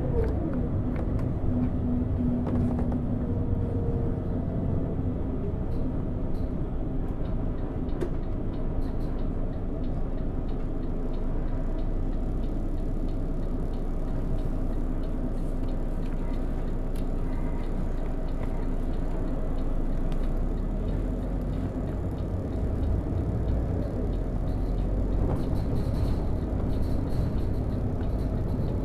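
Cabin ambience of a Volvo B12BLE bus under way: its horizontal six-cylinder Volvo DH12E diesel running steadily under road rumble, with a buzz from a faulty display.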